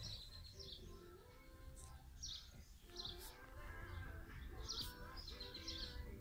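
Birds chirping faintly: a handful of short, high chirps that drop in pitch, scattered through the quiet, over a low background hum.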